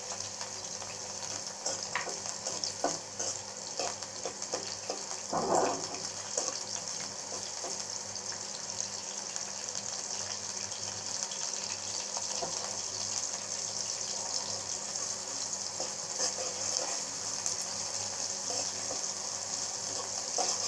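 Chopped onion sizzling in hot oil in a metal kadai, a steady frying hiss. The spatula knocks and scrapes against the pan as it is stirred, with one louder scrape about five seconds in.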